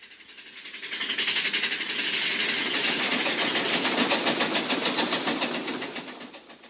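Big Thunder Mountain mine train rolling along its track: a rapid, even rattling clatter that fades in, holds steady, and fades out near the end as the train passes.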